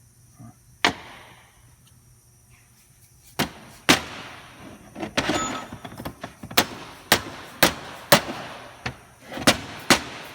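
Hammer blows on a hydraulic gear pump being knocked apart for inspection. One strike comes about a second in, then a steady run of sharp strikes, about two a second, each with a short ring.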